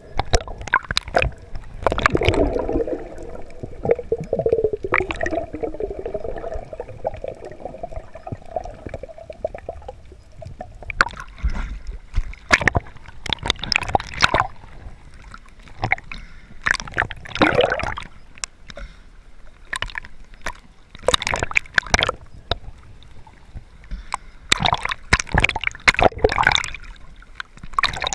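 Water sloshing and gurgling around a camera held at or just under the sea surface while snorkeling, with irregular splashes and bubble pops. A wavering low hum runs from about two seconds in to about ten seconds in.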